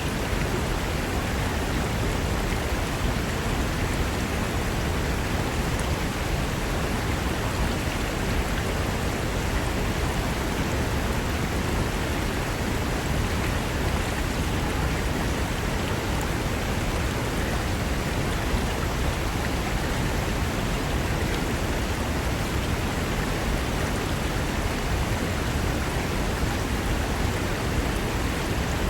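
Mountain river rushing over rocks: a steady, dense roar of water with no breaks.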